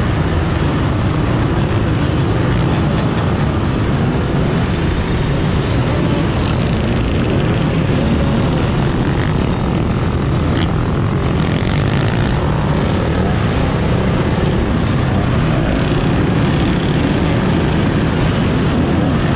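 Dirt bike engines running together in a group ride: a loud, steady wall of engine noise with pitches rising and falling as the bikes rev.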